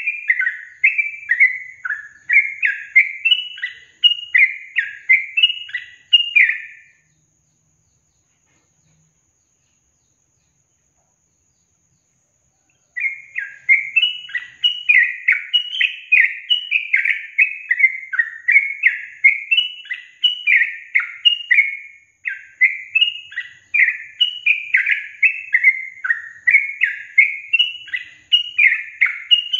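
Yellow-vented bulbul (trucukan) song: a fast, bubbly run of short sweeping notes in quick phrases. It cuts off to dead silence about seven seconds in, then resumes about six seconds later and carries on.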